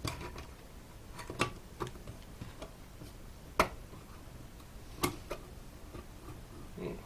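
Scattered sharp clicks and taps from an Intel NUC mini PC's bottom cover and captive corner screws being worked by hand while the cover is pried loose. The two loudest clicks come about halfway through and again a second and a half later.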